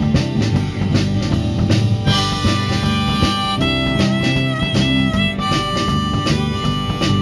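Instrumental break of a band song: a drum kit keeps a steady beat under guitar, and from about two seconds in a lead instrument plays a melody of long held notes.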